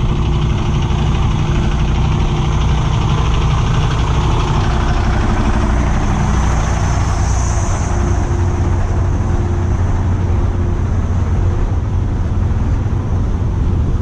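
Heavy truck engine idling with a steady low hum.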